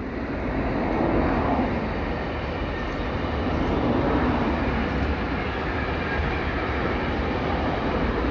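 A train passing close by: a steady rolling rumble of wheels on the rails that swells about a second in and stays loud.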